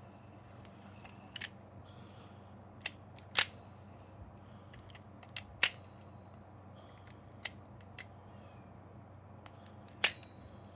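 Scattered sharp clicks of small parts and tools being handled as a cheap Chinese spinning reel is taken apart, about a dozen over ten seconds, three of them much louder than the rest. A low steady hum runs underneath.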